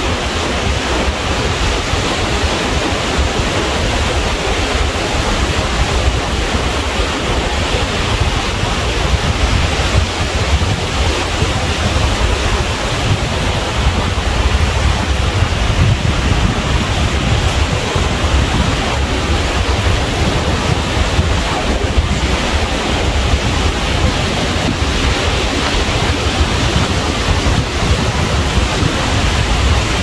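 Ocean surf washing in a steady, continuous rush, with wind rumbling on the microphone.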